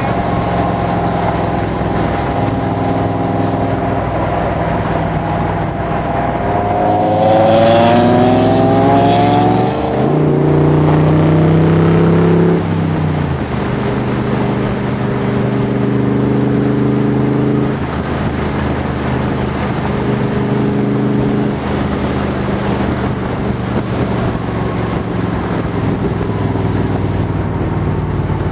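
Factory Five Cobra replica's Ford small-block V8 heard from its open cockpit, cruising, then pulling hard from about seven seconds in, the pitch rising through two upshifts before it settles back to a steady cruise.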